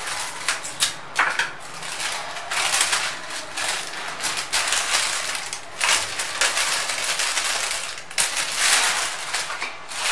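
Thin plastic milk bag crinkling and rustling as it is cut with scissors and worked open by hand, with many sharp irregular crackles.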